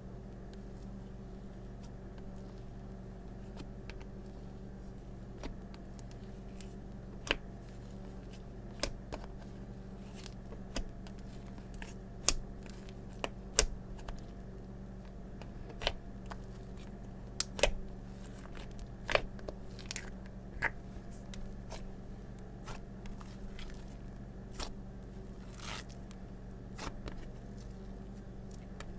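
Slime being worked with fingers in a small plastic cup: irregular sharp clicks and pops, starting about seven seconds in, over a steady low hum.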